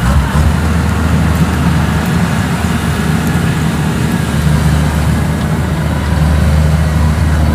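Diesel engine of a Kubota DC93 rice combine harvester running steadily under load, along with the engine of the tracked rice-sack cart moving beside it. The steady low drone eases slightly a couple of seconds in and picks up again about halfway through.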